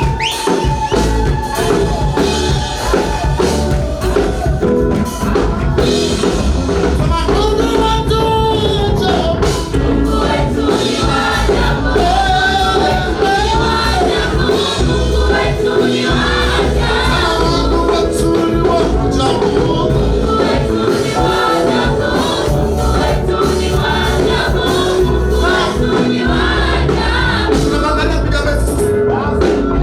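Gospel praise singing: several voices singing over band accompaniment with a steady low bass.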